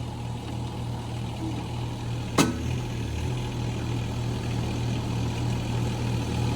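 Small skid steer's engine running steadily just over idle, with one sharp knock about two and a half seconds in.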